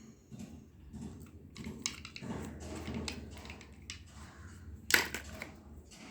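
Slime being mixed and squished by hand, giving irregular soft clicks and crackles, with one sharp, loud click about five seconds in.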